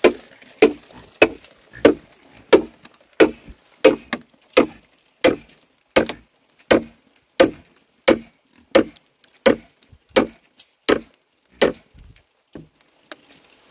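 Wood being chopped with steady, even blows, about three every two seconds. The blows stop about twelve seconds in, and a few lighter knocks follow.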